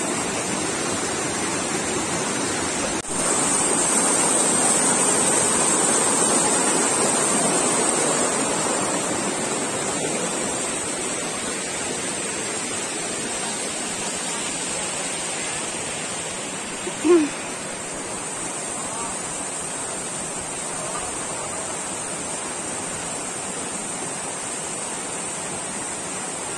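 Steady rush of river rapids over rocks, a little louder a few seconds in and easing slightly later. A brief, short sound stands out about seventeen seconds in.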